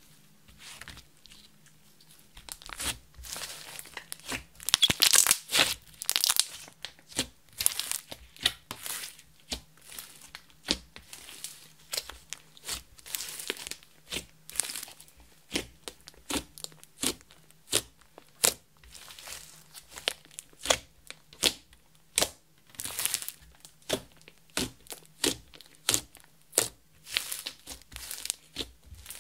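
Clear slime mixed with makeup and glitter being kneaded, folded and stretched by hand, giving off a quick, irregular run of sticky pops and crackles. It starts sparse and gets busier a few seconds in.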